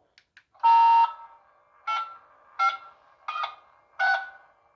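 Electronic beeps from the Knight Rider K.I.T.T. model's sound electronics as its lights are switched on: a faint click or two, then one longer tone followed by four short beeps spaced about three-quarters of a second apart, with a faint steady hum after them.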